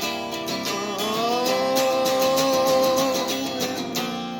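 Acoustic guitar strummed in an emo song, with a long held note that bends up about a second in and holds for a couple of seconds.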